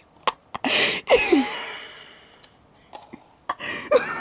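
A person's wheezing laughter: breathy, gasping bursts with a short squeaky voiced note, about a second in and again near the end.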